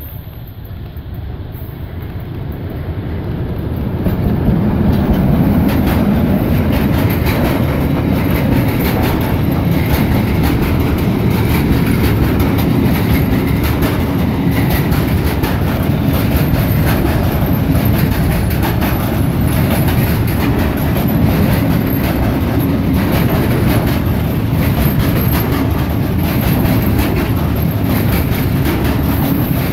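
DA60 (Romanian Class 60) 2100 hp Sulzer diesel-electric locomotive growing louder as it approaches and passes in the first few seconds. Then a long train of loaded covered hopper wagons rolls past close by with steady wheel clatter over the rails.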